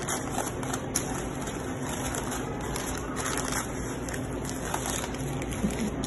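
Paper wrapper crinkling and rustling in short bursts as a gyro is rolled up in it, over a steady low hum.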